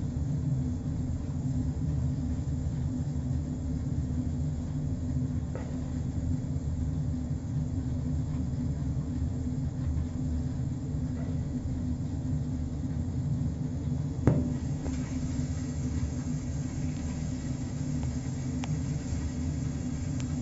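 Atmos wood boiler running with a steady low rumble and hum from the burning fire and its draught, with one sharp knock about two-thirds of the way in.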